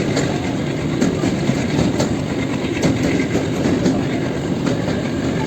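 A train running steadily on its rails: a continuous rumble with irregular clacks of the wheels over rail joints.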